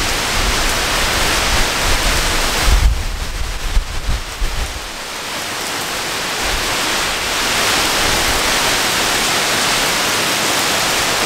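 Heavy tropical rainstorm: a dense, steady downpour with strong wind. A low, gusty rumble runs through the first five seconds or so and then eases.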